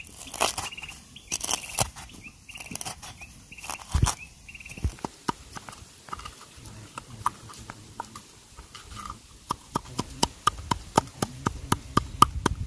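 A wooden stick used as a pestle pounding and grinding green chilies in a metal cup: irregular knocks at first, settling in the second half into quick, regular strikes of about three a second against the metal.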